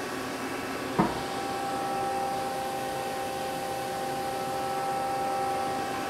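CNC machining center's chain-type tool magazine indexing to bring up the spindle probe. A sharp clunk about a second in, then a steady motor whine over the machine's hum.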